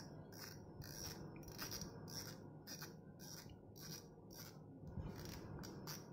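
Faint, evenly repeated clicks, about two a second, from a spinning reel's drag knob being turned by hand to unscrew it and remove the spool.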